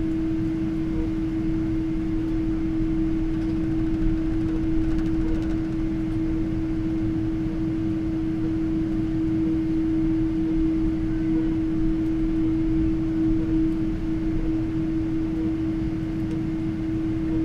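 Steady cabin hum inside a Boeing 777-300 airliner: an even low rumble with one steady droning tone held throughout.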